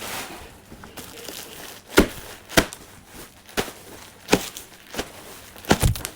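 A series of six or so sharp knocks or clacks at uneven intervals, starting about two seconds in, with a light rustle before them.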